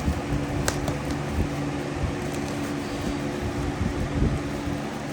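Steady hum of a running fan motor with an irregular low rumble of handling, and a single sharp click about two-thirds of a second in.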